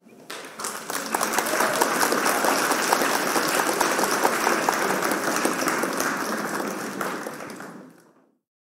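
Recorded crowd applause, many hands clapping, swelling up over the first second, holding steady, and fading out near the end. It marks the quiz answer being revealed.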